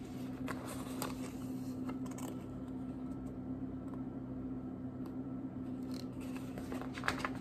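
Steady low electrical hum of room tone, with a few faint rustles and taps as a paperback picture book is held up and moved, a small cluster of them near the end.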